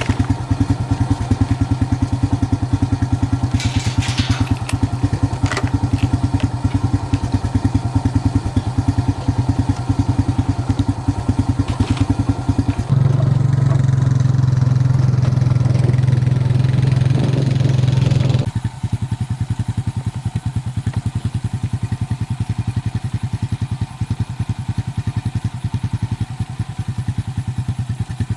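An engine running steadily with a fast even beat, with a few clatters early on. Its sound changes about 13 s in, getting lower and louder, then drops to a quieter running about 18 s in.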